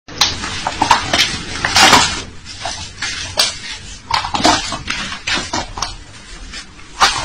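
Close, irregular rustling and scraping as hands pull and tie the laces of a canvas sneaker, a quick series of short scuffs and clicks.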